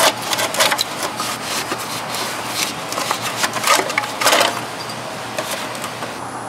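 Thin sheet-metal exhaust header heat shield clattering and scraping as a gloved hand works it loose, a rapid string of metallic knocks and rubs that thins out after about four seconds.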